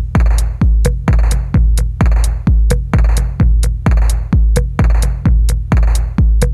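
Electronic background music with a heavy kick drum on a steady beat of about two a second and sharp hi-hat clicks between.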